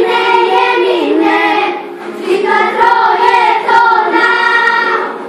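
A group of young girls singing together: one phrase, a short breath about two seconds in, then a second, longer phrase.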